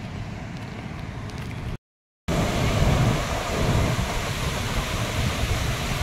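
Steady rush of a waterfall, mixed with wind buffeting the microphone. It drops out for a moment about two seconds in and comes back louder and fuller.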